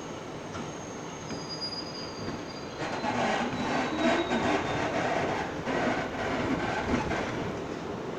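R62 subway car pulling out of a station, heard from inside the car. A steady hum with a faint high whine at first; about three seconds in it grows louder, with the motors rising in pitch and the wheels clicking and rumbling over the rails as the train picks up speed.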